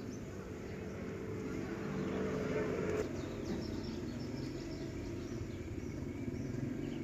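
Low, steady hum of a motor vehicle's engine running, swelling over the first few seconds, with a single click about three seconds in.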